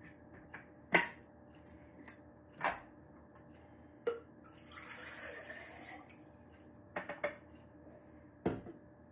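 A few sharp knocks and clinks of kitchenware on a countertop, then water poured from a glass jug into a blender jar for about a second and a half midway, followed by more glass clinks as the jar is handled and set down.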